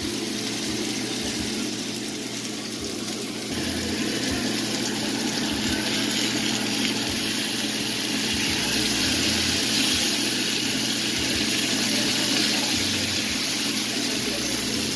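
Salmon fillets frying in oil in a cast iron pan, a steady sizzle that grows louder about three and a half seconds in as the fillets are turned with tongs.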